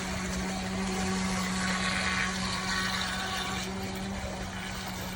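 Brushless electric motor of a radio-controlled racing boat running at a steady pitch, over a hiss of water.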